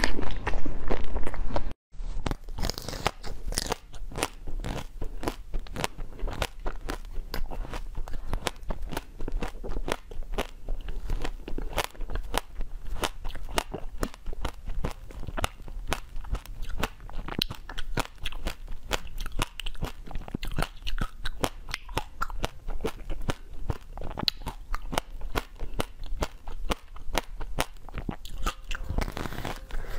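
Close-miked eating of frozen sweets: dense, crisp crunching and crackling as pieces are bitten off and chewed, with a brief break about two seconds in.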